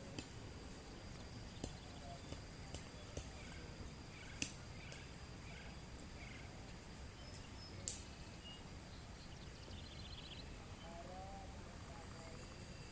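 Forest ambience: birds chirping in short notes over a steady high whine. About seven sharp clicks or knocks are scattered through it, the loudest about four and a half and eight seconds in.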